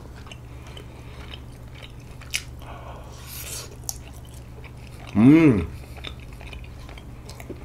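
Soft, sticky chewing of a half-moon rice cake (bandal-tteok) with a sweet bean filling, small wet mouth clicks, and a short hummed "mm" of appreciation about five seconds in, over a steady low hum.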